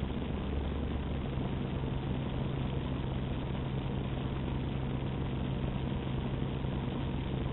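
Utility boom truck's engine running steadily. Its low hum steps up to a higher, steady pitch about a second in.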